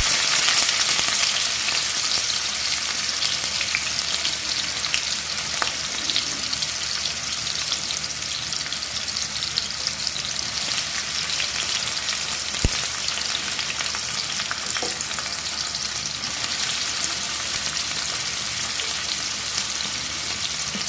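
Chopped onions and green chillies sizzling in hot oil in a kadai: a dense, steady frying sizzle, loudest at the start and easing a little, with one sharp tick near the middle.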